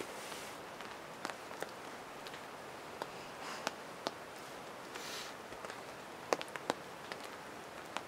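Soft handling sounds as hot dogs are pushed onto a forked wooden stick, with rain-jacket rustling and about a dozen scattered sharp ticks over a steady light hiss.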